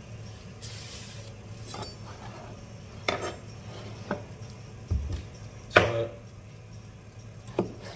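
Wooden chopping board and kitchen knife being put down and handled on a kitchen counter: about six separate sharp knocks and taps, the loudest a little before six seconds in, as a tomato is set on the board and cut.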